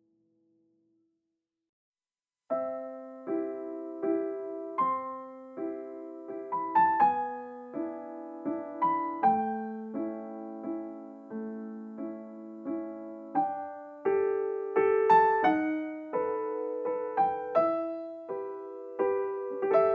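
Background piano music: after a moment of silence, a gentle piano piece begins about two and a half seconds in, with notes and chords struck at an unhurried pace, each ringing and dying away.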